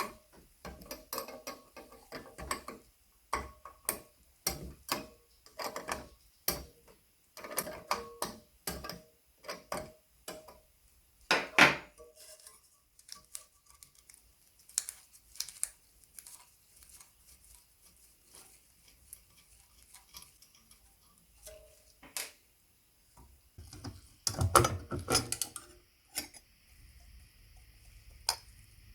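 Irregular clinks, taps and knocks of small metal parts and tools being handled, in uneven clusters with one louder knock about halfway through.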